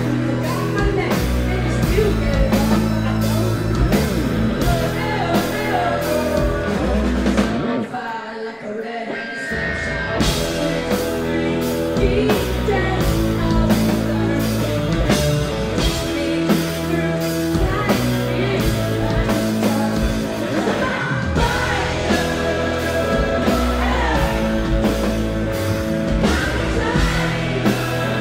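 Live rock band playing loud, with drums, electric guitar, bass and a singer's voice. A little over a quarter of the way through, the drums and bass drop out for about two seconds, then the full band comes back in.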